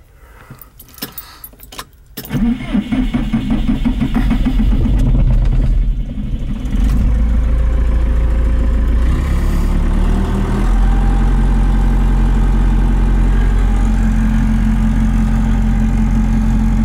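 A Trackless MT5 tractor's diesel engine, preheated by its grid heater, is started with the key. After a few faint clicks it cranks and catches about two seconds in, runs unevenly for a few seconds, then settles into a steady idle.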